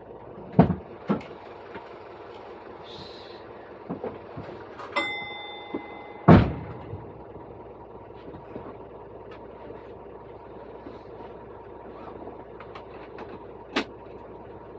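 Dual Mode Vehicle's engine idling steadily while it stands on the rails, with several sharp clicks and knocks in the cab, the loudest about six seconds in, and a short beep about five seconds in.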